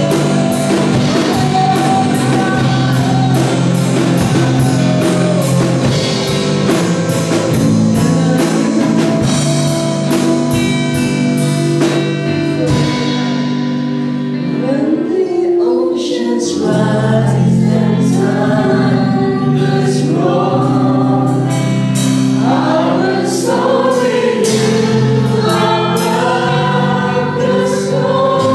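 Live gospel worship music: a band with drum kit and guitars playing under several women singing into microphones. The drums drop back for a few seconds near the middle, leaving the voices over held chords, then come back in.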